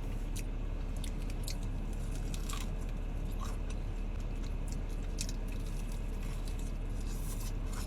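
A person chewing fried chicken close to the microphone, with scattered short crunches of the crisp breading, over a steady low hum.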